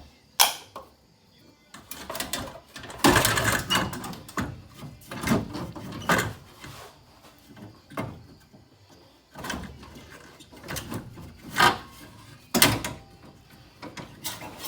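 Irregular knocks, clunks and scraping of tools and plastic parts being handled while a radiator cooling fan assembly is worked loose and pulled out of a car's engine bay.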